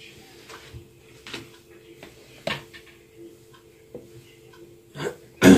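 Milk being poured from a plastic measuring jug into a blender jug, with a few light knocks of the jugs being handled and a louder knock near the end. A faint steady hum runs underneath.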